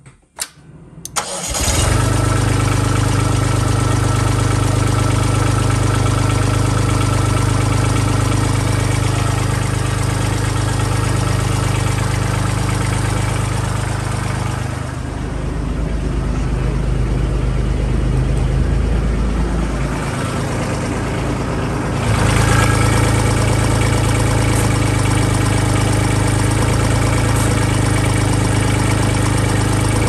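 Kubota tractor's diesel engine cranked and started about a second in, then running steadily. For several seconds in the middle the sound is muffled, heard from inside the tractor cab.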